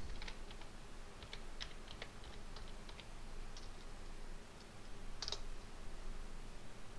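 Computer keyboard keys tapped one at a time, a quick run of light clicks as a command is typed. A single louder keystroke, the Enter key, comes a little past five seconds in.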